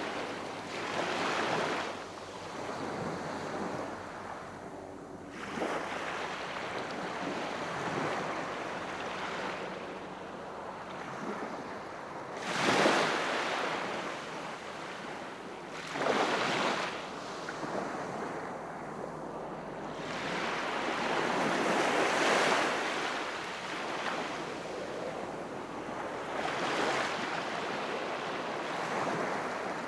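Calm sea waves breaking and washing up on the shore, swelling and ebbing every few seconds, with one larger wave a little before the middle.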